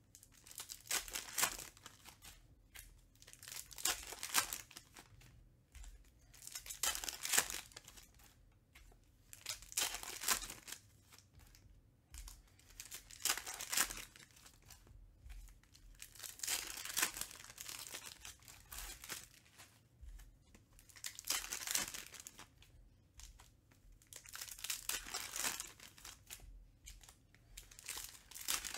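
Foil wrappers of Panini Recon basketball card packs being torn open and crinkled one after another, a burst of crackling foil every few seconds.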